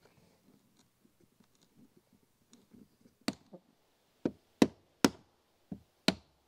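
A hammer driving square hardwood (ironwood) pegs into round holes through a birch bark canoe's gunnel caps: faint handling sounds, then about seven sharp wooden knocks from about halfway through, a few to each second.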